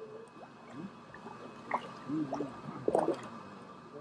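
Water dripping and splashing from a hand net of tilapia as it is lifted out of a fish tank and held over a bucket, with short wet splashes about two and three seconds in.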